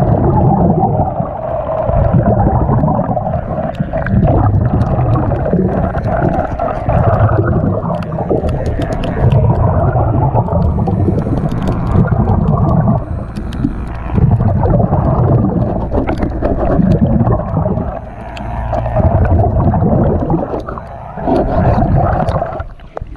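Underwater sound of a diver's breathing through a regulator, with bubbling exhalations swelling and easing in a steady rhythm about every two and a half seconds.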